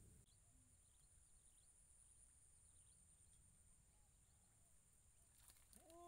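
Near silence: faint marsh ambience with a steady high-pitched drone and a few faint chirps, and a few light clicks near the end.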